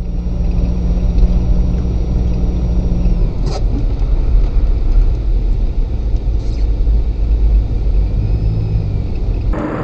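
Car engine and road noise heard from inside the cabin of a moving car: a steady low rumble, with a short sharp click about three and a half seconds in.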